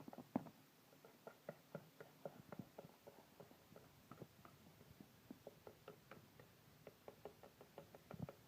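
Faint, irregular small clicks and taps, a few a second, in a quiet room.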